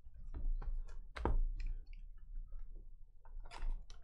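Hands handling a sealed cardboard trading-card hobby box: scattered clicks and taps, a louder knock about a second in, and rustling near the end as the box is opened.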